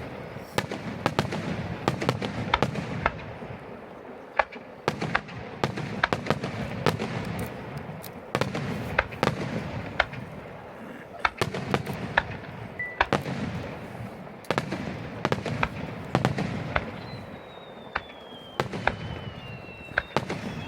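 Aerial fireworks bursting in quick succession: a steady run of sharp bangs and crackles over a low rumble, with a falling whistle near the end.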